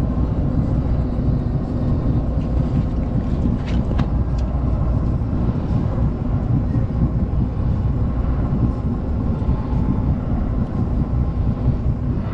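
Steady low rumble of a boat's engine running, with a couple of light clicks about four seconds in.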